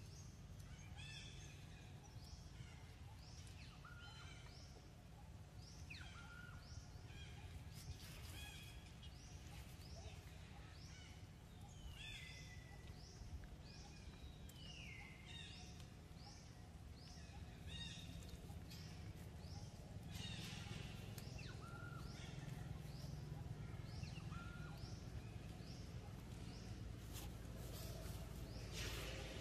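Faint outdoor ambience of birds giving short, high chirps that fall in pitch, repeated about one to two a second, over a steady low rumble.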